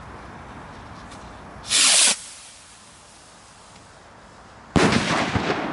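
Cosmic Fireworks Black Gemini firework rocket launching with a short, loud whoosh about two seconds in. About three seconds later its shell bursts with a sudden loud bang, and the sound stays loud afterwards.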